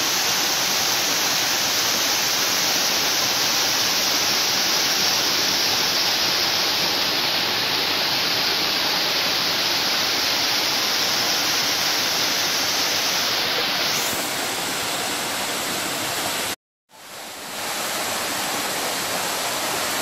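Steady, close rush of a tiered waterfall cascading down rock steps into a pool. The sound cuts out completely for a moment about three-quarters of the way through, then comes straight back.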